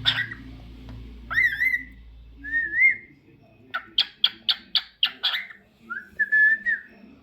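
Lutino cockatiel whistling three short warbling phrases that slide up into a wavering note. A quick run of about seven sharp clicking chirps comes a little after halfway.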